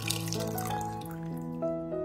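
Lemon juice pouring from a glass juicer bowl into a glass measuring jug, a splashing stream that thins to drips about a second in. Background music with held notes plays throughout.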